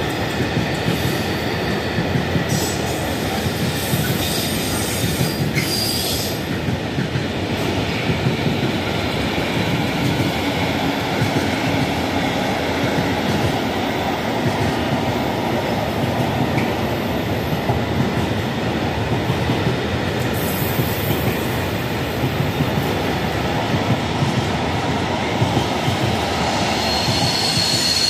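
Container freight wagons rolling past on the rails in a steady, continuous rumble of wheels over track. A thin, high wheel squeal comes in briefly a few seconds in and again near the end.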